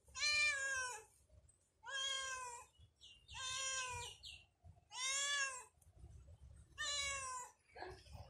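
Orange tabby domestic cat meowing repeatedly: five meows, each under a second long, about a second and a half apart.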